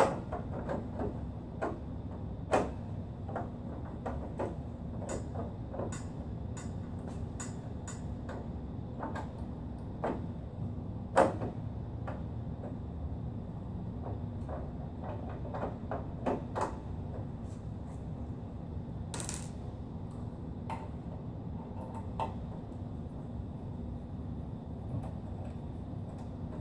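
Irregular clicks and knocks of a screwdriver and loosened metal and plastic parts as an HP Designjet Z3100 printer's side electronics and gear housing are dismantled, the sharpest knocks about two and a half and eleven seconds in, with a short scrape around nineteen seconds, over a steady low hum.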